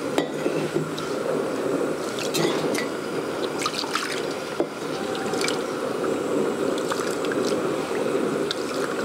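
Rice being washed by hand in a clay bowl: water poured in from a steel vessel and the grains swished and rubbed, with a steady watery hiss broken by small splashes and drips.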